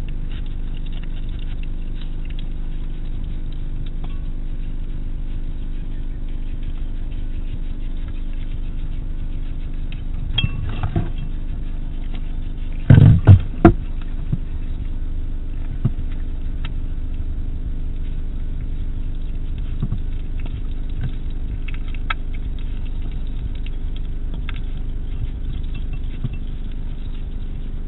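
Hedgehog feeding at a dish: scattered small clicks of chewing and foraging over a steady low hum, with a few loud knocks about halfway through.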